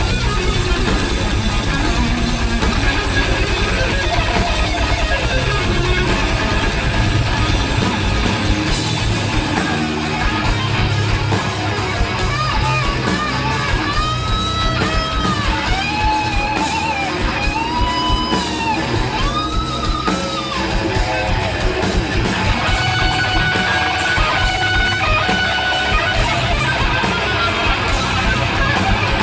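Metal band playing live: heavy distorted electric guitars over fast drumming. From about 12 s to 21 s a higher line of held notes bends up and down above the riff.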